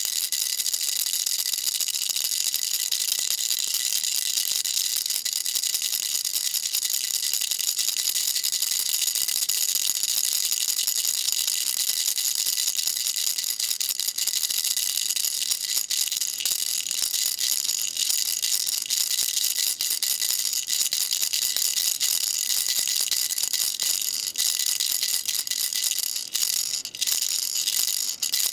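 Baby rattle shaken without pause, a dense, high-pitched rattle that falters briefly a couple of times near the end.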